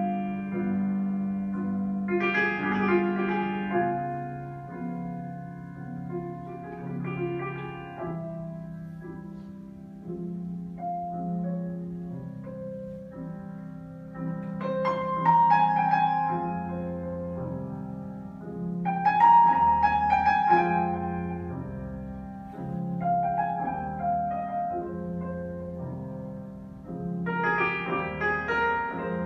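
Live performance by a large jazz ensemble with orchestra: sustained keyboard chords, with the fuller ensemble swelling louder about 2, 15 and 19 seconds in and again near the end.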